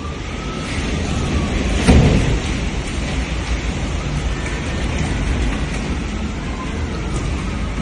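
Hurricane wind and rain: a steady rush of rain with gusting wind rumbling on the microphone, and a stronger gust about two seconds in.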